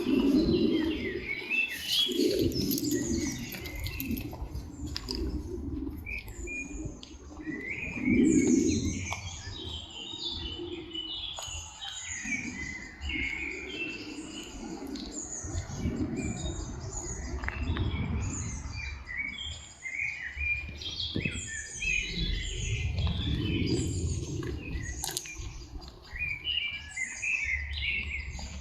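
Several songbirds chirping and singing, with many short, quick, falling notes. A low rumble swells and fades under them several times.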